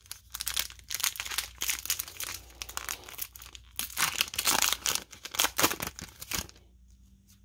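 Wrapper of a Panini NASCAR trading card pack crinkling and tearing as it is opened: a dense, irregular crackle, loudest past the middle, that stops shortly before the end.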